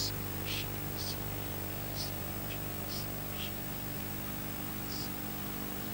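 A person praying quietly under the breath, heard as faint whispered hissing s-sounds about once a second, over a steady electrical hum from the sound system.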